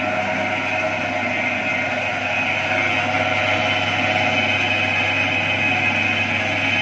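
Electric motor of a stainless-steel chicken cutting machine running steadily, spinning its 10-inch circular blade with no meat in it: a constant hum with a higher whine over it, getting slightly louder a couple of seconds in.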